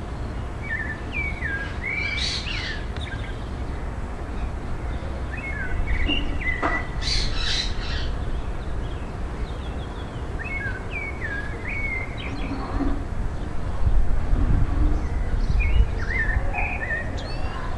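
A thrush singing short phrases of clear whistled notes, one phrase every four or five seconds, over a steady low outdoor rumble.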